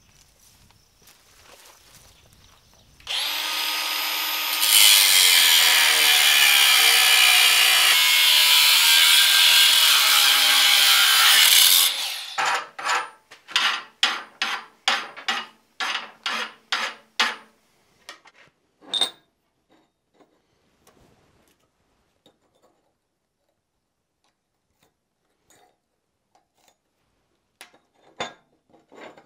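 A power saw starts up and cuts through steel bar stock for about seven seconds. It is followed by about a dozen quick, even strokes of a hand file on the freshly cut bar, which is deburring the cut end.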